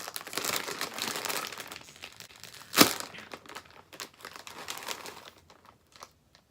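Plastic chip bag being handled and crinkled, with dense crackling at first, one sharp loud crackle near the middle, then scattered crinkles that die away.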